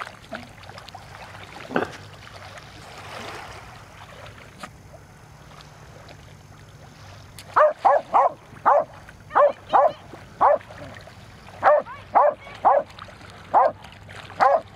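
Dandie Dinmont terrier barking: a single bark about two seconds in, then from about halfway through a run of about a dozen quick, sharp barks in two bursts with a short pause between them.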